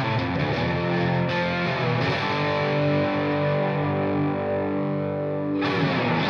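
Background music: distorted electric guitar playing long held chords that change every second or two.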